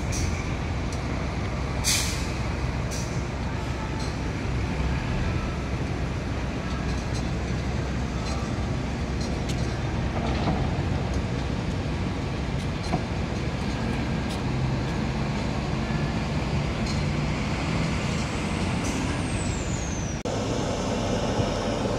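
Loaded truck's engine running steadily as it rolls slowly down a ferry's ramp, over a continuous low rumble. A short, sharp hiss about two seconds in.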